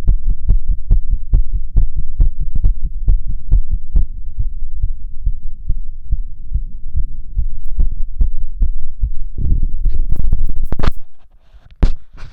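Fast heartbeat heard through a stethoscope on the chest, a quick, even lub-dub, in a fast but otherwise normal rhythm. It grows louder about nine and a half seconds in, then stops near the end, where a sharp knock and some rustling follow.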